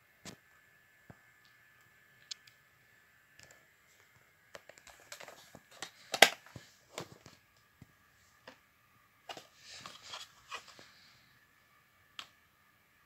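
Plastic alarm panel housing being handled and turned over: scattered clicks and knocks, the sharpest about six seconds in, with a stretch of soft rustling around ten seconds. A faint steady high tone runs underneath.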